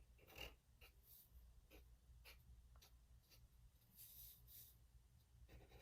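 Faint scratchy strokes of a broad-tip marker colouring on paper, a series of short strokes in one direction, a little louder about four seconds in.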